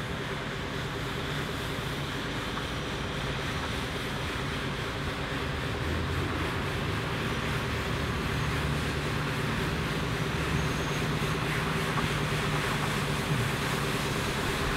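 John Deere 6230 tractor's four-cylinder diesel engine running steadily while its front-mounted Wille rotary brush sweeps gravel and dust off the road with a continuous hiss. The sound grows gradually louder as the tractor approaches.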